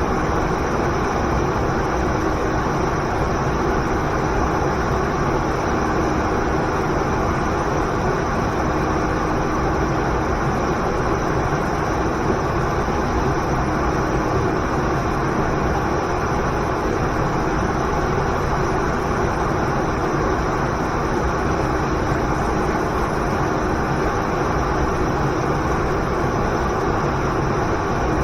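Waterfall roaring steadily, a dense, even rush of falling water.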